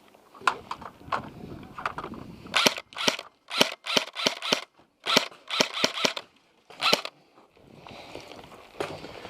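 Pistol-class skirmish guns firing single shots in quick succession: about fifteen sharp pops between about two and a half and seven seconds in, with a few fainter shots before.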